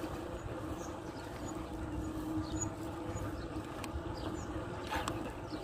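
Steady hum with low wind rumble while riding a bicycle, with a few faint high chirps.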